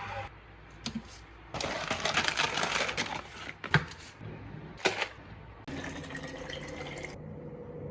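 Packaging being handled and opened: crinkling, rustling stretches with two sharp clicks or taps in the middle.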